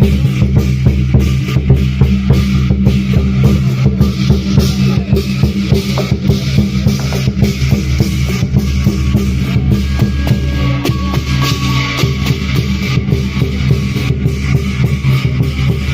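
Lion dance percussion: drum and cymbals beating a loud, rapid, continuous rhythm.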